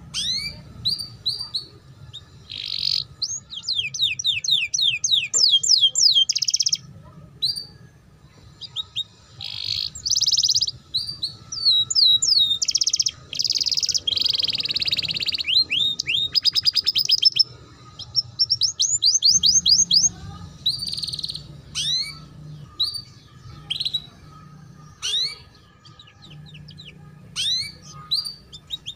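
Domestic canary singing the rapid 'ngeriwik' song: phrases of quick rising chirps and buzzy trills with short pauses between them, including a very fast trill about 17 seconds in.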